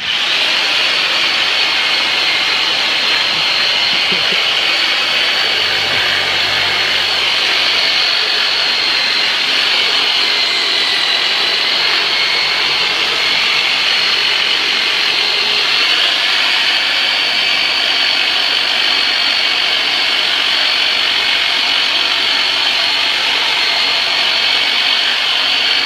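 Electric jigsaw retooled as a percussive myofascial massage tool, running at a steady, high-pitched buzz after starting abruptly.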